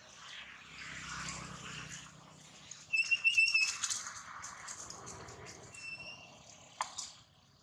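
Rustling and scuffling in dry leaf litter, with a high, thin, whistle-like call held about half a second about three seconds in and a shorter one near six seconds. A sharp snap comes near the end.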